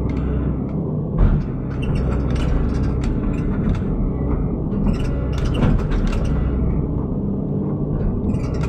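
Excavator's diesel engine running steadily under work, with a sharp knock about a second in and another about halfway through.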